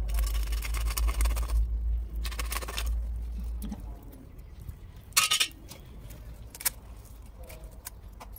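Metal blade scraping scales and slimy skin off a snakehead murrel: two long scraping strokes in the first three seconds, then a short sharp scrape a little after five seconds.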